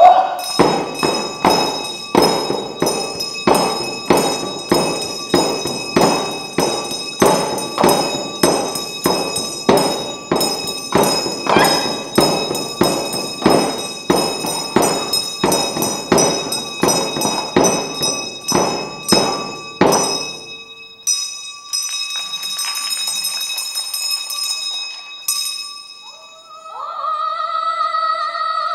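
Tibetan Reba dance hand drums beaten in a steady pulse, about one and a half beats a second, under a constant metallic ringing. The beat stops about two-thirds of the way through, leaving the ringing on its own, and singing begins near the end.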